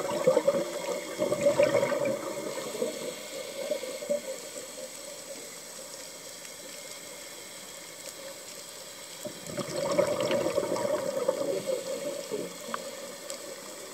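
Scuba diver's regulator exhaust heard underwater: two bursts of exhaled bubbles gurgling and crackling, one at the start lasting about three seconds and another about ten seconds in, with a low steady hiss between breaths.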